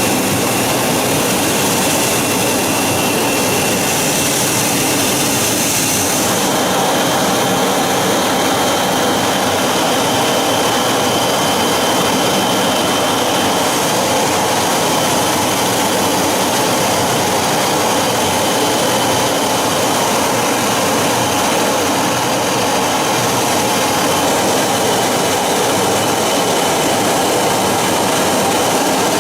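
Su-57 fighter's jet engines running: a steady, even rush of noise with a faint high whine held at a constant pitch.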